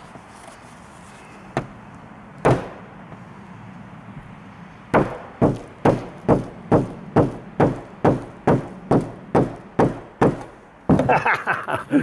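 A white-headed mallet striking the plastic handle of a pair of Victorinox scissors, driving the blade point into a car's sheet-metal roof. Two single knocks come first, then a steady run of about a dozen sharp blows, a little over two a second.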